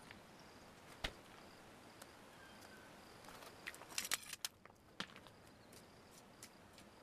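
Faint insect chirping, a short high note repeated over and over, with a few sharp clicks: one about a second in and a loud cluster of them around four seconds in.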